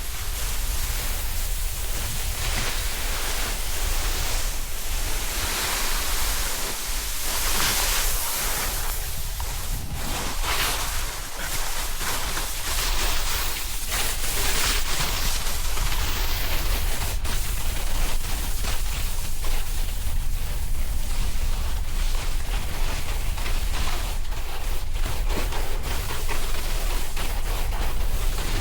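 Wind rushing over the action camera's microphone during a snowboard descent, a steady deep rumble, with the hiss and scrape of the snowboard sliding over snow. The scraping turns rougher and choppier in the second half.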